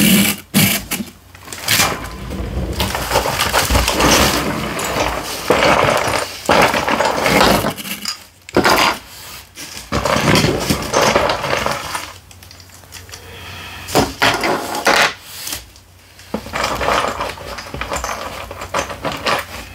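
Small plastic Lego bricks clattering and clicking as they are dug out of a box and dropped onto a table, with a clear plastic bag liner crinkling and rustling as hands rummage through it.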